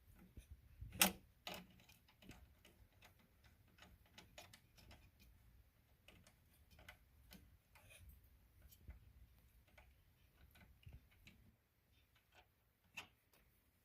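Scattered light clicks and taps from a socket ratchet working the 8 mm nuts on top of a light-controller relay box, with one sharper click about a second in.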